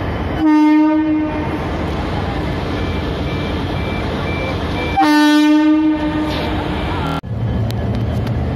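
Indian Railways WAP-4 electric locomotive sounding its horn twice as it rolls past, each blast about a second long and the two about four and a half seconds apart, over the steady rumble of the passing locomotive. Near the end the sound cuts abruptly to a steady low hum.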